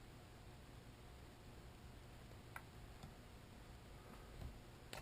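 Near silence: faint room tone with a single light click about halfway through and another weaker one near the end.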